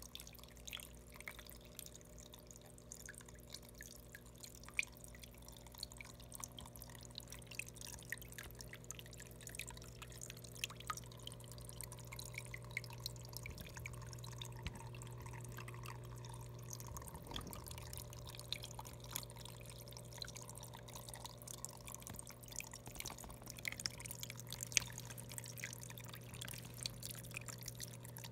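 Small vivarium waterfall trickling down rock into a shallow pebble pool, with many small drips and splashes ticking steadily, over a steady low hum.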